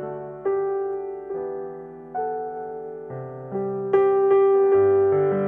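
Instrumental theme music: slow keyboard chords over a bass line, each chord struck and then fading, changing about once a second.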